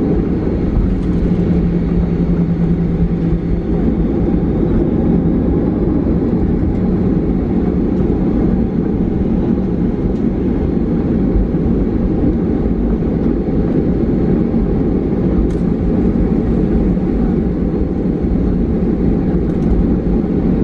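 Steady cabin noise of a Boeing 737-800 taxiing: a low rumble from its CFM56 engines at taxi power and the rolling airframe, heard inside the cabin, with a faint hum in the first few seconds.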